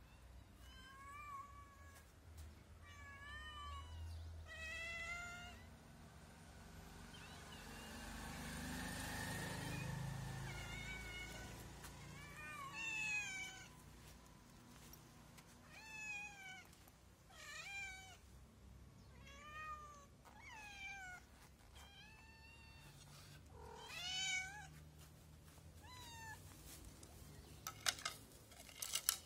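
Stray cats meowing over and over, about a dozen short rising-and-falling meows, begging to be fed. A rustling noise swells around the middle, and a quick run of sharp clicks comes near the end.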